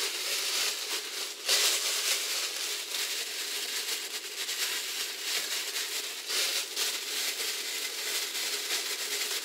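A thin plastic bag crinkling and rustling as it is handled around a sink drain pipe, with a louder crackle about a second and a half in.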